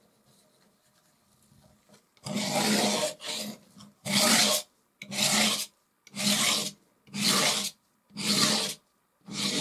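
Metal palette knife scraping pale oil paint across a textured canvas in a series of strokes, roughly one a second, starting about two seconds in.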